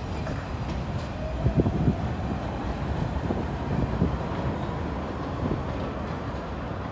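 R62 subway train pulling out and accelerating away, with a rising whine from its motors and the steady rumble of the cars. A few wheel knocks over rail joints come through.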